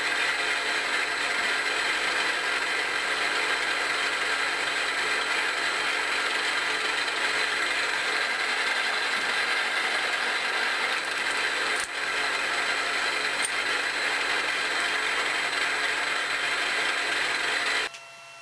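Milling machine running with a Tapmatic 30X reversing tapping head, a steady mechanical whir with a gear whine, as a form tap threads into stainless steel and backs out. A single sharp click comes about twelve seconds in, and the machine sound cuts off suddenly near the end.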